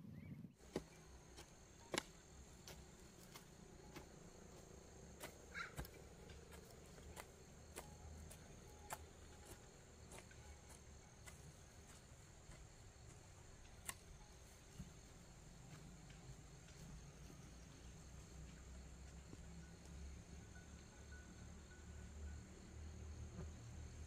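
Insects, such as crickets, keeping up a steady high-pitched trill over a quiet background, with a few faint sharp knocks scattered through it, the loudest about two seconds in and near the middle.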